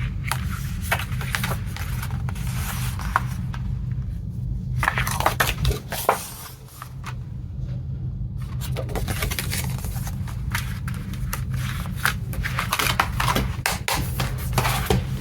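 A boxed Blu-ray set and its packaging being handled: irregular scrapes, rustles and light clicks, with a steady low hum underneath.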